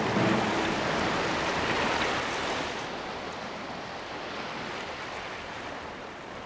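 Steady rushing wash of sea water, like surf, gradually quieter over the first three seconds.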